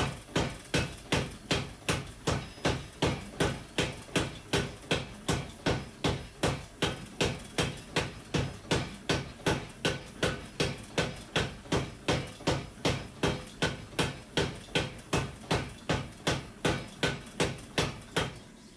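Mechanical power hammer pounding a hot damascus billet in a steady, even rhythm of about two and a half blows a second, the blows setting the forge welds of the billet. The blows stop abruptly at the end.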